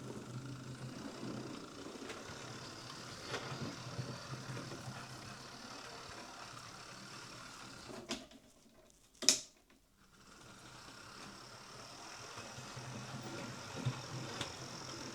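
Hornby Class 9F OO gauge model locomotive running on test: the small DC motor and gears give a steady whirring hum. About 8 s in it stops, a single sharp click follows a second later, and then the motor starts running again and builds up.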